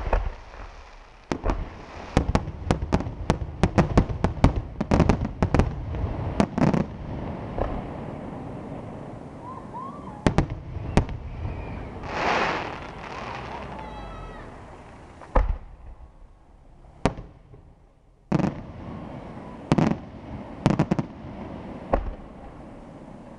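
Aerial fireworks display: a rapid string of shell bursts and bangs over the first several seconds, then a crackling swell midway as a gold burst fills the sky. Single bangs follow at intervals of a second or two near the end.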